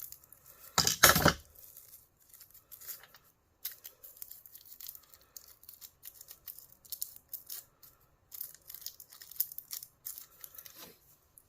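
Hands pulling apart small plastic-and-copper parts from a line conditioner: scratchy tearing, rustling and small clicks, with one loud clatter about a second in.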